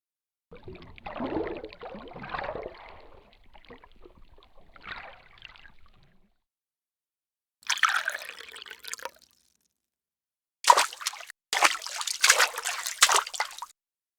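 A string of separate water sound effects parted by dead silence: several seconds of trickling, gurgling water, then after a gap a short splash, and near the end two louder bursts of splashing, sloshing water.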